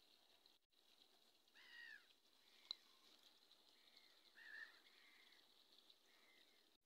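Near silence, with a few faint, short animal calls that rise and fall in pitch, spaced about a second or two apart, and one sharp click about halfway through.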